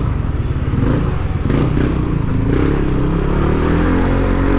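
Yamaha NMAX 155 scooter's single-cylinder engine running under way, its pitch rising as the throttle opens over the second half.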